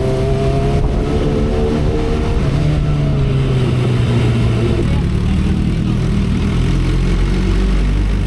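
2012 Kawasaki Ninja ZX-10R's inline-four engine running at road speed, its note shifting in pitch a few seconds in, under a steady rush of wind noise.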